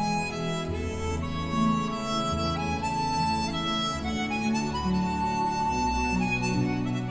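Instrumental background music: a melody of held notes, each lasting about a second, over a steady bass line.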